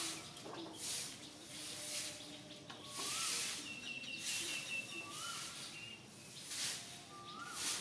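Outdoor birdsong: a short rising whistled note repeats about every two seconds, with higher thin, trilled calls between, over recurring bursts of high hissing.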